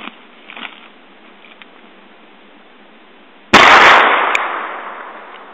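A single shot from a Ruger Single Six revolver firing a .22 Magnum (.22 WMR) hollow-point round, about three and a half seconds in. It echoes and dies away over about two seconds, with a short sharp tick just under a second after the shot.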